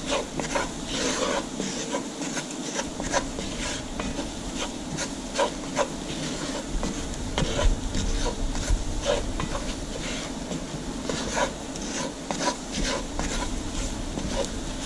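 A roux being stirred in a pot: a spoon scraping steadily across the pot bottom, with frequent light clicks against the pot. The stirring is kept up without pause so the thinning roux does not scorch.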